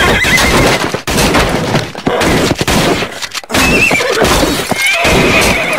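Horse neighing and whinnying with a wavering call as it bucks out of control, over loud stamping, thuds and crashing.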